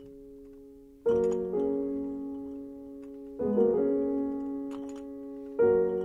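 Solo piano playing slow chords. A new chord is struck about every two seconds and left to ring and fade.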